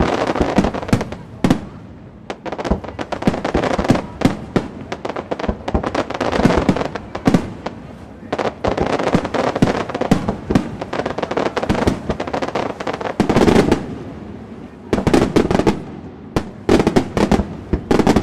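Aerial fireworks display: a dense barrage of bangs and crackling, several sharp reports a second. It thins briefly about three-quarters of the way through, then picks up again.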